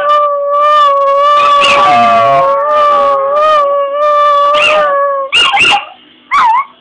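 Dog howling: a long, steady note with wavering cries over it, breaking off about five seconds in into two short yips.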